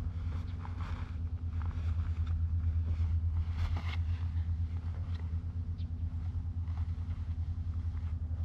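Small go-kart engine idling with a steady low rumble, with fabric rustling and light clicks as a folding camp chair is pulled from its bag and unfolded.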